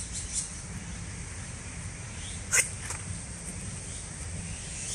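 A few short, sharp scuffs and snaps from a person moving fast through a martial-arts horse-form movement on dirt ground, the loudest about two and a half seconds in, over a steady low rumble.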